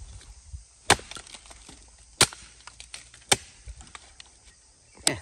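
Firewood being chopped: four sharp chopping blows about a second apart, with small cracks of splintering wood between them.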